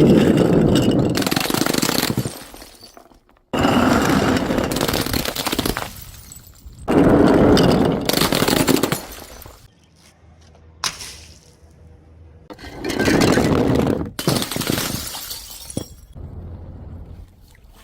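Glass bottles smashing, four loud crashes, each trailing off over a second or two as the pieces settle.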